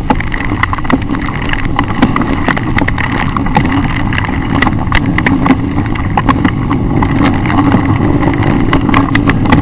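Dirt bike engine running steadily as the bike rides a rough muddy trail, with many quick irregular knocks and rattles from the bike bouncing over the ground.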